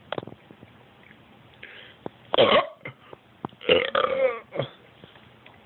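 A person belching deliberately after drinking Coca-Cola: a short burp about two and a half seconds in, then a longer, croaking burp with a wavering pitch a second later.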